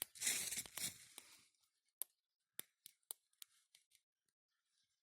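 Bonfire crackling: a rustling crackle for about the first second, then about eight sharp pops spaced a quarter to half a second apart, thinning out toward the end.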